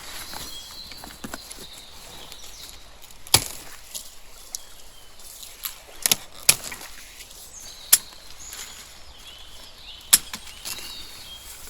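A series of sharp, single knocks or chops, about six of them at uneven gaps of one to two seconds, with faint bird chirps in the background.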